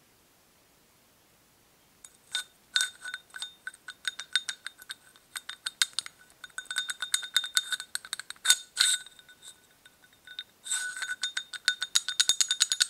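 Steel ball bearing clicking and clinking against a worn Argo idler shaft as it is wobbled by hand, a fast irregular run of sharp metallic knocks with a short ringing note, starting about two seconds in. The rattle comes from the play between the bearing and the worn, undersized bearing seat on the shaft.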